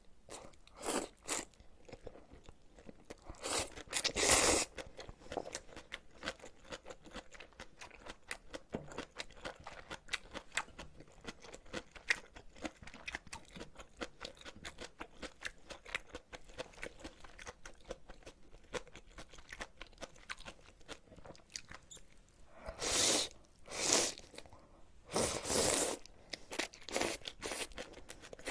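Close-miked eating of ramen noodles and cabbage kimchi: steady chewing with crunchy, wet bites throughout. Several louder noodle slurps break in, once or twice near the start and a cluster of them near the end.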